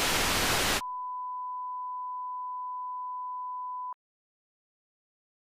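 Television static hiss that cuts off under a second in to a steady, pure test-card tone. The tone stops with a click about four seconds in, and silence follows.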